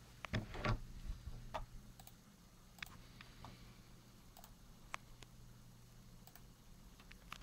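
Rubbing and knocking of a handheld phone being moved close to its microphone about half a second in, then scattered single sharp light clicks over a steady low hum.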